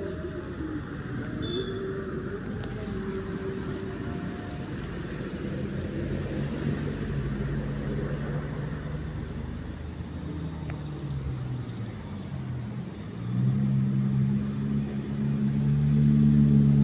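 A motor vehicle engine running nearby, its pitch rising and falling, then growing much louder over the last few seconds.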